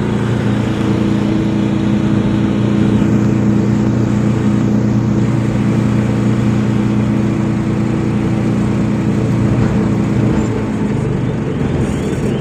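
Loaded truck's diesel engine running steadily at cruising speed, heard from inside the cab with tyre and road noise; the engine note changes about ten seconds in.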